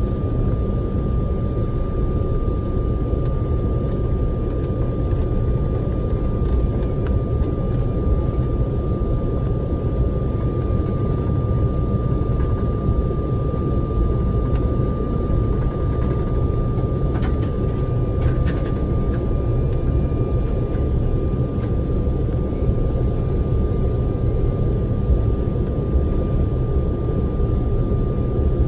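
Cabin noise inside an Embraer E190 with GE CF34-10E6 turbofans, taxiing. It is a steady low rumble with a steady high-pitched engine whine.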